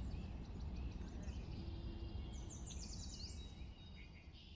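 Birdsong: several birds chirping, with a quick run of repeated descending notes about two to three seconds in, over a low steady rumble. It all fades out near the end.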